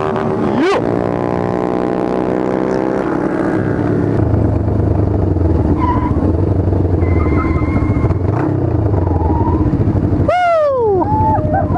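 Motorcycles of a large group ride running: first a steady engine note from the bike carrying the microphone, then a deeper rumble of many bikes moving together. A loud falling whoop near the end.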